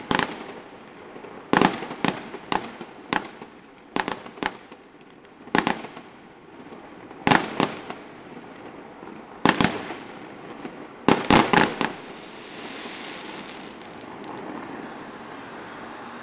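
Aerial firework shells bursting in a series of sharp bangs, often two or three in quick succession, with a fast run of bangs about three quarters of the way through. The bangs then give way to a steady hiss.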